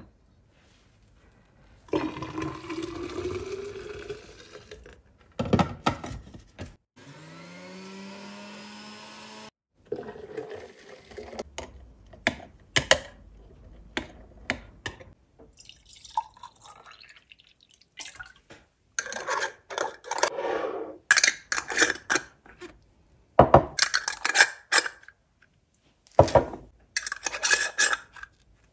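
Green juice poured into a glass bottle, its pitch rising as the bottle fills, twice. Then a long metal spoon stirs and clinks inside the glass, and near the end small glass jars knock on the counter while their metal screw lids clink and are twisted on.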